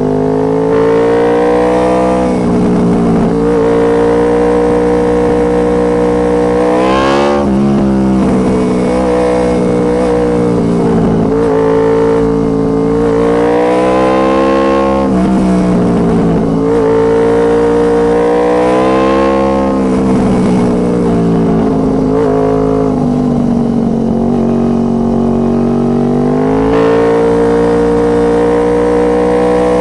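2006 Honda VFR800 Interceptor's V4 engine through a Two Brothers Racing exhaust, revving up and down again and again as the rider accelerates and eases off, with several quick, sharp drops in pitch.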